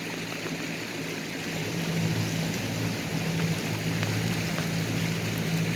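Small motorboat's engine running with a steady hum that grows louder about two seconds in, over a steady hiss of water.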